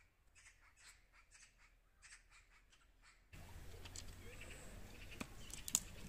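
Faint bird chirping, short calls repeated several times a second; about halfway through it gives way to a steady outdoor background with a few sharp clicks of dry twigs being laid on a stone fire pit.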